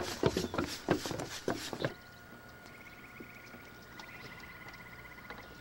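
Footsteps knocking on the planks of a wooden boardwalk at a brisk walk, a few steps a second. They stop suddenly about two seconds in, leaving a quiet marsh background in which a short high trill sounds twice.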